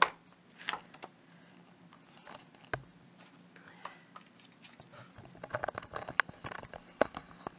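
Scattered light clicks and taps of cardboard boxes and packaging being handled, coming thicker in the last couple of seconds.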